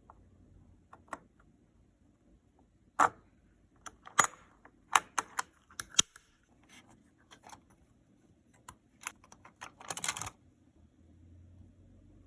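Sharp metal clicks and snaps of a CPU socket being worked: retention lever and load plate opened and closed and the processor set in. A single loud click about three seconds in, a run of clicks a second later, and a quick rattling cluster near the end.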